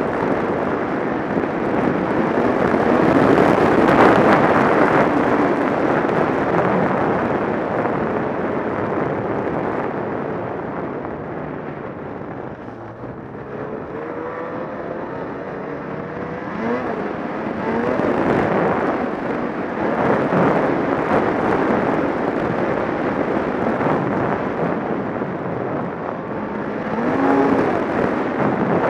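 Ski-Doo Renegade Adrenaline 800 E-TEC snowmobile's two-stroke twin running hard along a snowy trail, heard from on board. The engine note swells and eases with the throttle: loudest a few seconds in, it backs off about twelve seconds in, then winds up again in several surges.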